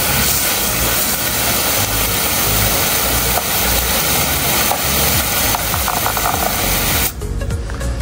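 Water from a garden-hose spray nozzle hissing steadily onto plastic fan grilles and brick paving, as the fan parts are rinsed clean. The spray breaks off for under a second near the end.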